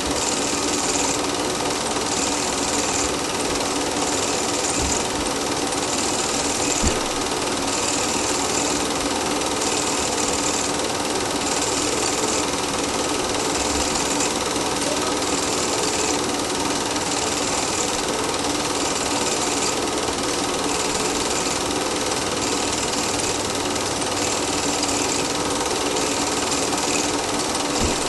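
Home cine film projector running steadily: a continuous mechanical whirr and clatter from the film transport, with a high hiss that swells about every two seconds.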